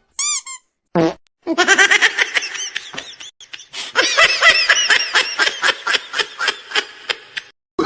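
Comedy sound effect: a quick run of high chirps and a short low blip, then about six seconds of rapid, pulsing cartoon-style laughter that cuts off abruptly.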